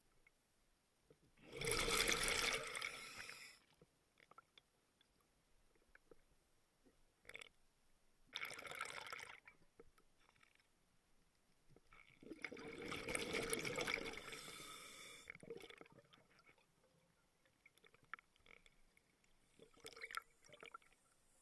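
Scuba diver's exhaled bubbles rushing out of the regulator underwater in three bursts, a few seconds apart, with faint clicks and crackles in between.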